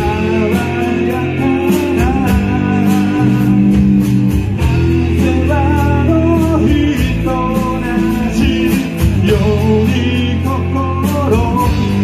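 Live band playing a pop-rock song: a man singing into a microphone over strummed acoustic guitar, with band backing and a steady drum beat.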